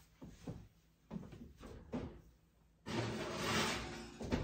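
An oven being loaded: a few light knocks, then the oven door opening and the baking dish sliding in, a scraping rush lasting about a second and a half that ends in a knock.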